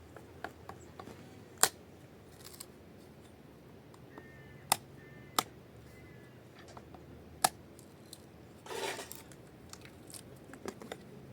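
Sharp clicks: four loud ones a second or more apart and several fainter ones, with a short rustling burst about nine seconds in.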